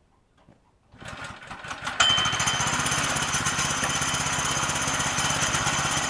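Woodland Mills HM122 sawmill's small gas engine starting up about a second in, then coming up to a loud, steady run with a fast even beat about two seconds in.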